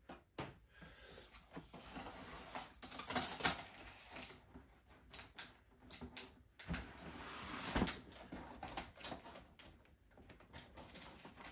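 Hands prying open a factory-sealed cardboard box: irregular scraping and rustling of the cardboard flaps and sealing tape, with a few sharper scrapes about three seconds in and near eight seconds.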